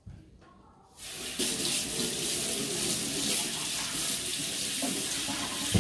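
Kitchen tap running water into the sink, starting about a second in and shutting off near the end.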